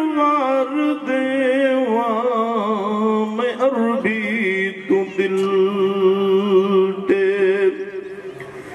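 A man singing a naat in long, drawn-out notes, picked up by microphones, with wavering ornamented runs over held tones. It grows quieter near the end.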